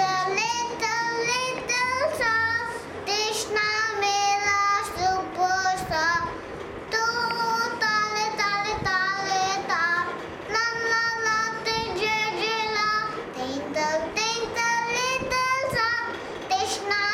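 A young child singing, held high notes in phrases with brief pauses between them.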